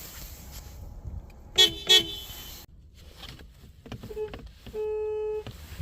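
Car horns honking: two quick loud blasts about one and a half seconds in, then a short beep and a longer steady honk near the end.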